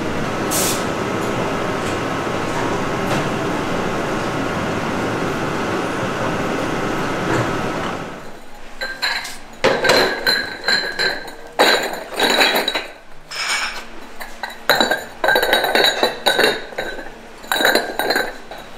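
A steady noise for about the first eight seconds. Then fired, glazed earthenware pots clink and ring against one another in many quick, irregular knocks as they are lifted and stacked by hand.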